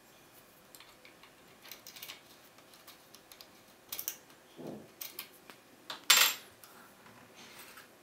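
Brass key sliding into and out of a five-pin Ifam pin-tumbler cylinder, giving scattered metallic clicks and scrapes as it rides over the pins, with one louder metallic clack about six seconds in.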